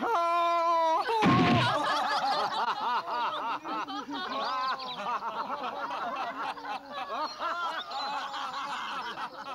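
A man's drawn-out wail of dismay, then a short low whoosh about a second in, followed by a crowd of villagers laughing together.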